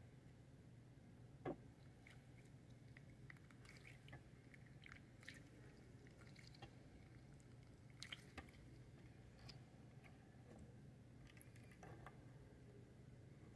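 Faint sticky clicks and squishes of glossy slime being stretched and pressed by hand, with a sharper click about a second and a half in.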